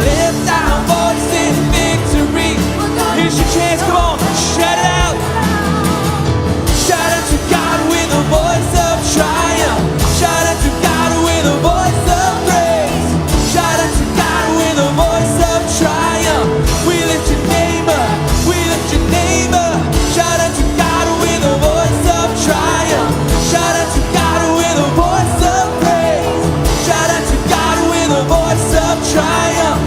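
Live worship band playing an upbeat song with drums, bass, guitars and piano, and singers singing over it.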